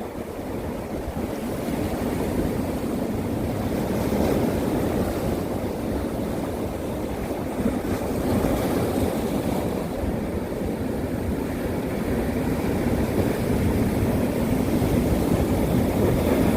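Sea waves surging and breaking in a continuous wash that slowly grows louder, with wind buffeting the microphone.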